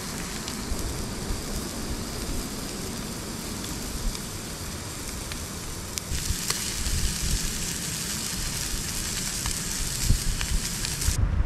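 Beef patty sizzling and frying in a stainless steel pan on a canister gas stove, a steady hiss that grows louder about halfway through and cuts off abruptly near the end. A low rumble runs underneath.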